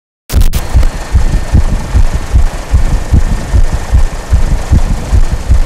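Loud helicopter noise recorded from the aircraft: uneven low thumps of wind buffeting the microphone, about two or three a second, over a steady engine and rotor hiss. It cuts in abruptly just after the start.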